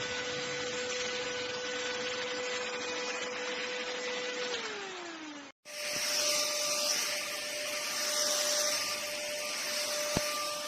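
Cordless handheld vacuum cleaner's motor running with a steady whine and rushing air. About four and a half seconds in it winds down with a falling pitch. After a brief cut it is running again with a slightly higher whine.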